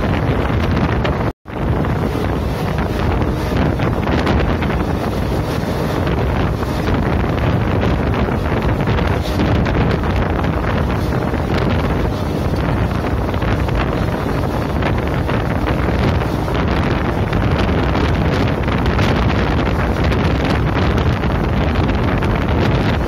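Loud wind buffeting the microphone from the open side of a moving Yoga Express passenger train, over the train's steady running noise. The sound cuts out for an instant about a second and a half in.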